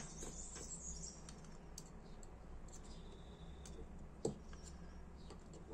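Sparse, faint clicks and ticks of small metal parts and a thin hand tool being handled and fitted into a metal lighter, with one sharper tap about four seconds in.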